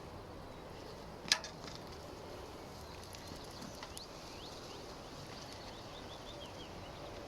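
Quiet woodland ambience with faint, distant birds chirping, and a single sharp click about a second in.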